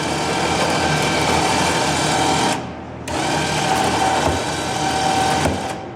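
Electric drive motor of a home-built elevator running as the car is raised on its first test run, a steady mechanical whir. It stops for about half a second partway through, runs again, and stops shortly before the end.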